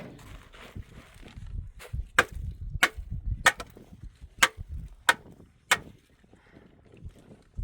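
A series of seven sharp blows, a little over half a second apart, with low knocking and shuffling between them; the strikes stop about six seconds in.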